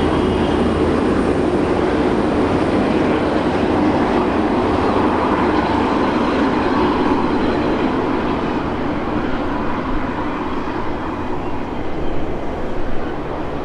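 V/Line VLocity diesel multiple unit running past along a station platform: a steady diesel engine drone mixed with wheel and rail noise. It grows fainter over the last few seconds, with a few louder clatters near the end.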